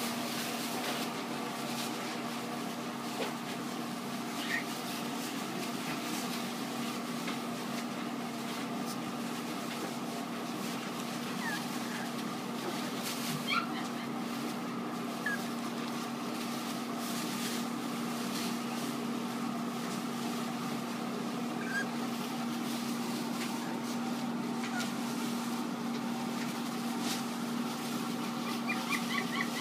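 Cavalier King Charles Spaniel puppies rustling through shredded-paper bedding, with a few brief, faint high squeaks from the puppies, over a steady low hum.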